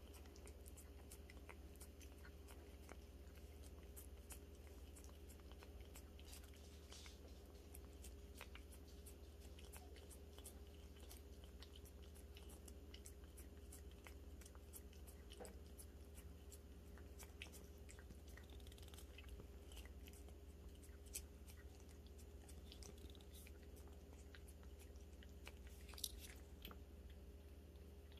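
Ragdoll cat licking a lickable Churu treat from a squeeze tube: a run of faint, irregular wet licking clicks over a low steady hum, with one sharper click near the end.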